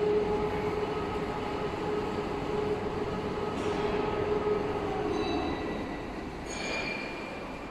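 Feed grinder-mixer machine running: a steady mechanical hum and rumble with a constant mid-pitched tone, easing off somewhat in the last couple of seconds.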